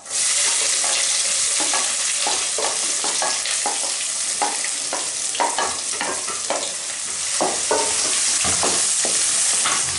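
Chopped onions sizzling as they drop into hot oil in a steel kadai, the hiss starting suddenly and holding steady, while a wooden spatula scrapes and stirs them with many short scraping strokes.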